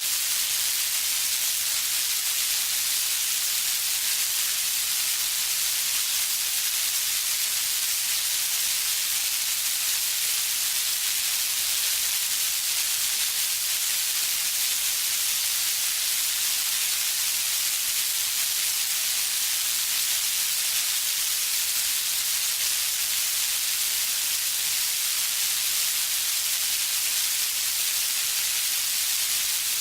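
Designed electrical sparking texture: a dense, steady crackle of tiny sparks, like rain, a constant high hiss.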